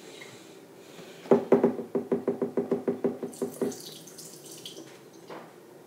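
Water being poured in the kitchen, going out in a quick run of about fifteen rhythmic glugs, followed by a short hiss of water.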